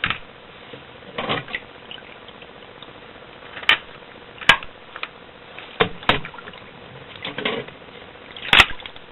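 Handling of a wet KJW Glock gas-blowback airsoft pistol: a series of sharp clicks and knocks about a second apart, the loudest near the end, with short sloshing and rustling of water between.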